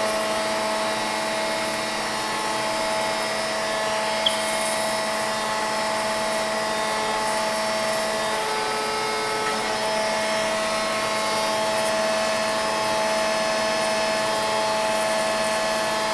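Marvel vertical tilt-head bandsaw running with a steady machine hum, its pitch shifting briefly near the middle, and one short click about four seconds in.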